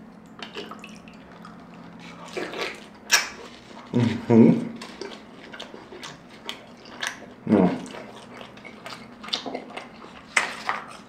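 Wet eating sounds from a birria taco dipped in consommé: juicy smacks, slurps and clicks of biting and chewing close to the microphone, with a few short hummed sounds from the eater.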